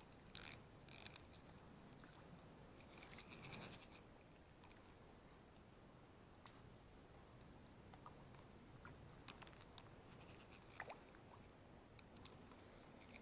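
Near silence, with a few faint clicks and a brief soft run of ticks and rustling about three to four seconds in.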